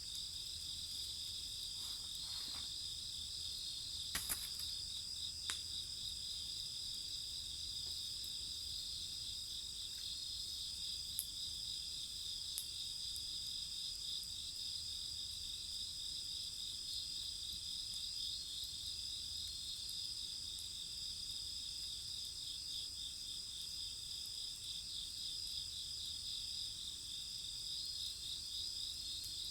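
Steady chorus of crickets and other night insects trilling, with a few sharp pops from the burning wood of a campfire.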